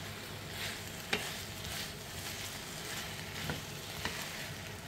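Potato and onion chunks sizzling in a wok with a soy and oyster sauce coating, stirred with a wooden spoon. A steady sizzle runs throughout, with a few light knocks of the spoon against the pan about a second in and near the end.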